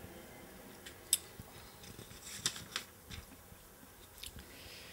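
Book pages being turned and handled close to a microphone: a few short paper rustles and clicks, the sharpest about a second in.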